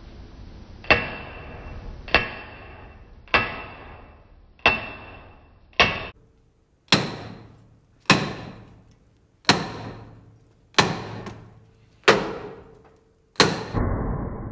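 Eleven hammer blows on a steel bar wedged at the front upper ball joint, about one every second and a quarter, each a sharp metal-on-metal clank with a brief ring, followed by a duller thud after the last. The bar is being driven to separate the ball joint so the upper control arm can come off.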